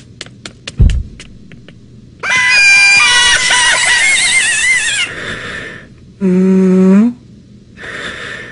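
A squeezed rubber chicken toy letting out a long, loud, wavering squawk. Before it, light even ticking that fades out, with one low thud; after it, a cartoonish snore: a low steady hummed tone, then a breathy draw of air near the end.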